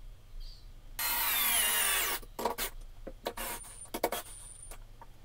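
Cordless drill boring into a wooden board: one continuous run of about a second, its pitch sagging under load, then several short trigger pulses.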